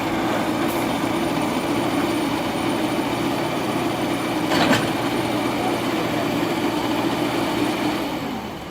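MST backhoe loader's diesel engine running steadily at raised revs, with a single sharp knock about halfway through; near the end the engine speed drops and it settles lower.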